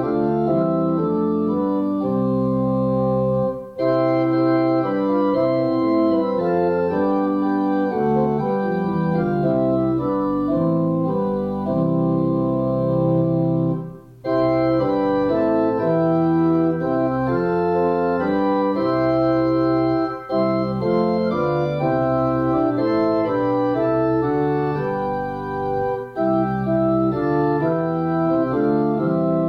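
Church organ playing a hymn in held chords, with short breaks between phrases about four and fourteen seconds in.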